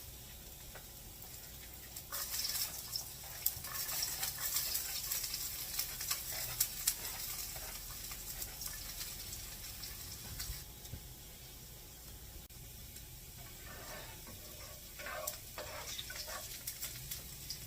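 Chopped onions sizzling and crackling in hot oil in a frying pan. The crackle is densest from about two seconds in and fades noticeably about ten seconds in.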